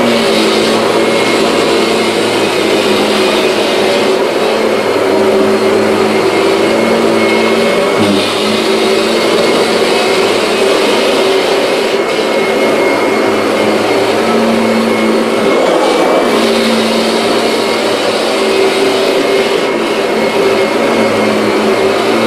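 Kirby G6 upright vacuum cleaner running steadily as it is worked over a large rug, a loud motor whine over rushing air, with a brief dip in pitch about eight seconds in.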